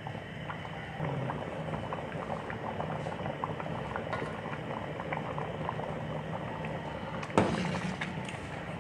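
Carrot halwa in milk boiling down in a large pot, thick and nearly dry, with a steady crackle of bubbles bursting and spitting, the stage at which the reducing milk starts to splatter. A louder knock comes near the end as the ladle is moved in the pot.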